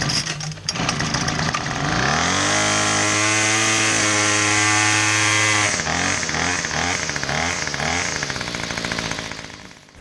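Troy-Bilt TB25SB string trimmer's small two-stroke engine running, now that its ignition module has been replaced. It revs up to a high, steady speed, then the revs rise and fall rapidly over and over before the sound fades out near the end.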